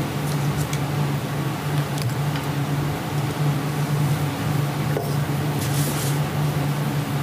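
Steady low hum and hiss of room noise on a police interview-room recording played back over courtroom speakers, with a few faint ticks and a brief rustle about six seconds in.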